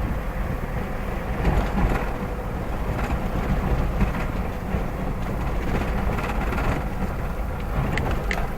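A vehicle on the move: a steady, loud low rumble with road and wind noise.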